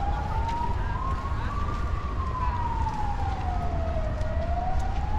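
A siren wailing, its pitch rising and falling slowly, about one full cycle every four to five seconds, over a steady low rumble.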